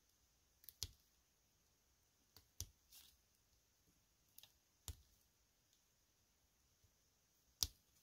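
Small side-cutter snips clicking as they nick and cut heat-shrink tubing on a battery lead: a handful of short, sharp clicks spread out every second or two, the loudest near the end.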